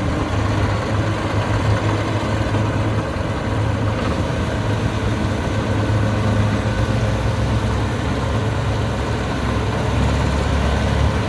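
Kubota DC60 combine harvester's diesel engine running steadily as a low drone, swelling slightly near the end.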